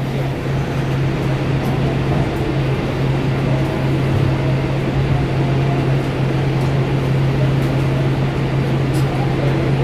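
Interior noise of a Kinkisharyo P3010 light rail car: a steady low hum over an even rumbling noise.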